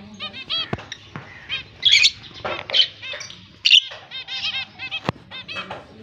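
Caged lovebirds chirping: a fast run of short, high chirps, with louder shrill calls about two, three and four seconds in, and a few sharp clicks.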